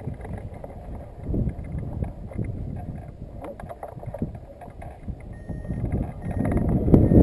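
Wind buffeting the microphone of a hang glider's camera on the launch ramp, a rough gusting rumble that swells and fades and grows stronger near the end.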